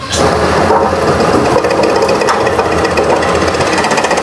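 Electric slicing machine running and cutting fresh turmeric rhizomes into thin chips, a loud, fast, even chatter of the blade chopping through the roots.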